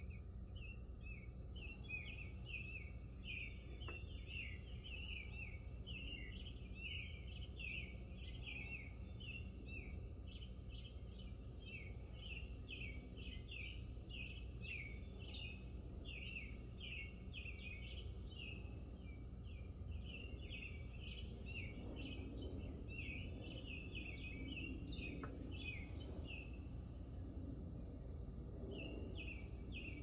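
A small bird chirping rapidly and repeatedly over a low, steady background hum, with a short pause near the end.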